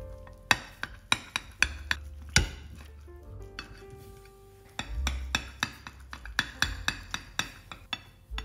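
Kitchen knife cutting through an eggplant frittata on a ceramic plate: a quick series of sharp clicks and crunchy knocks as the blade presses through the browned crust and taps the plate. The knocks come in two runs, with a lull around three to four seconds in.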